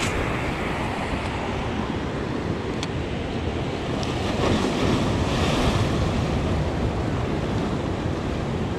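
Sea surf breaking and washing over the rocks of a breakwater, with wind buffeting the microphone. A wave surges louder about halfway through. There are two faint clicks in the first half.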